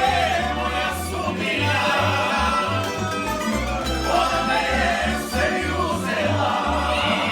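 Live Croatian tamburitza folk band playing and singing: plucked tamburica strings over a walking bass line, with voices singing the melody.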